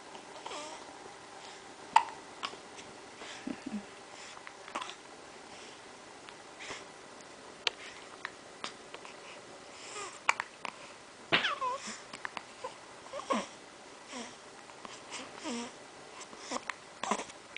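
A young baby hiccuping over and over, with short, sharp hiccups every second or two and little coos and grunts in between.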